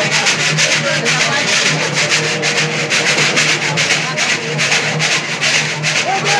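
Cururu instrumental passage: a ganzá (notched bamboo scraper) scraped in a fast, even rhythm, with viola de cocho lutes strummed beneath it.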